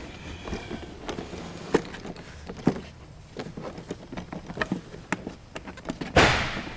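Handling noise on a snowmobile's plastic body panels: scattered light taps and knocks, then a louder brief scraping rush near the end.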